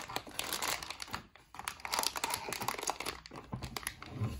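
Plastic-foil pad packet (ZOLL CPR Uni-padz) crinkling as it is handled and pressed into place on the back of the defibrillator, in irregular bursts with a brief pause a little after a second in.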